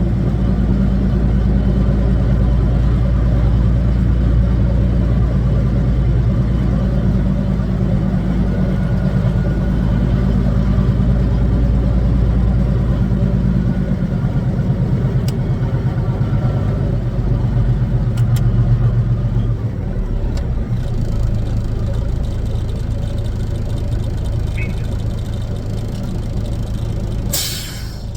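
Kenworth W900's Caterpillar diesel engine running steadily with a low drone; the low end of the sound shifts about halfway through. A short burst of hiss comes near the end.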